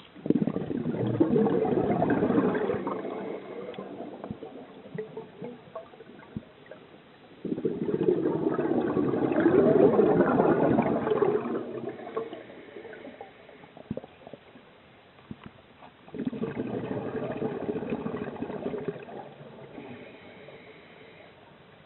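Scuba diver breathing underwater through a regulator: three long bursts of exhaled bubbles, each lasting a few seconds, with quieter stretches between breaths.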